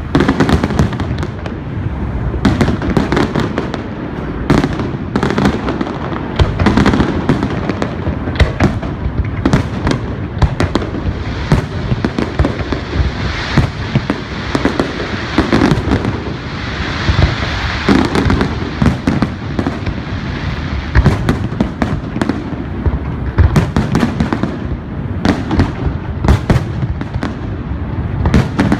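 Fireworks display: a dense, continuous barrage of bangs and booms from aerial shells, with crackling in between that thickens around the middle.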